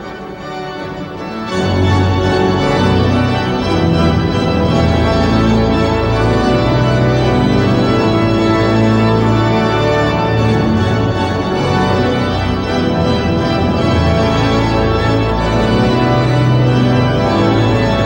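Church pipe organ playing sustained chords. About a second and a half in, a deep bass note enters and the music grows louder, then holds steady.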